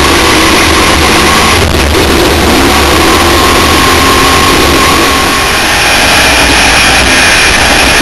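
Wind buffeting the onboard camera's microphone on a Class 1 off-road race car at speed: a loud, steady rush that mostly buries the engine, whose faint pitch drifts up and down beneath it.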